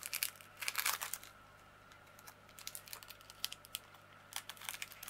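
Small clear plastic bag of diamond painting drills crinkling in the fingers, with light clicks of the resin drills shifting inside. Busiest in the first second, then quieter, then sporadic clicks again from about halfway.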